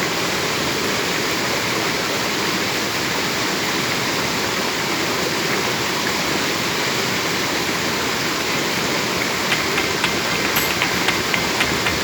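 Waterfall rushing in a steady, even roar of falling water, with a few light clicks near the end.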